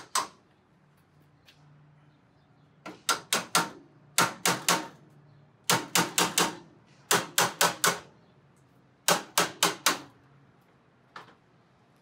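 Hammer striking locking pliers clamped to a metal tab on a steel drawer cabinet, metal on metal, knocking the tab out of the way so the drawers can slide out. The strikes come in six quick runs of three to five, with a single faint tap near the end.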